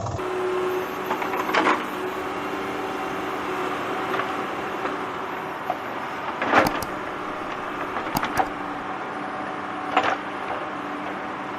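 A small motor whirring steadily, broken by a few sharp plastic clicks and knocks, the loudest about two-thirds of the way through.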